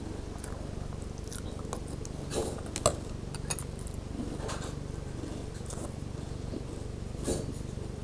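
Dry crunchy corn and oat cereal being chewed: irregular short crunches, loudest about two and a half seconds in and again near the end, over a steady low hum.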